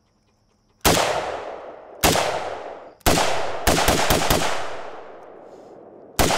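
AK-pattern rifle firing: three single shots about a second apart, then a quick string of about five shots, and another quick string starting near the end. Each shot rings out and fades over about a second.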